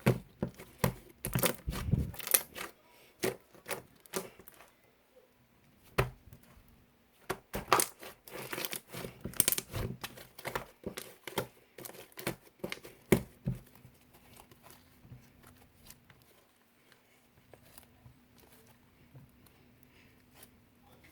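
Firm slime being stretched, pressed and folded by hand, giving irregular sticky crackles and sharp snapping pops in clusters. The popping thins out to occasional faint clicks in the last third.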